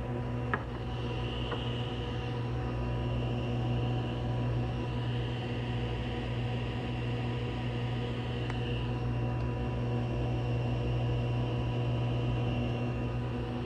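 A woodworking machine running steadily with a constant deep hum, a higher whine swelling and fading over it, and a couple of light clicks.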